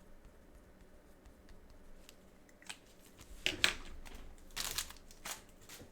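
Crinkling and tearing of plastic wrapping, handled in a few sharp rustling strokes, loudest about halfway through, as a card box is unwrapped.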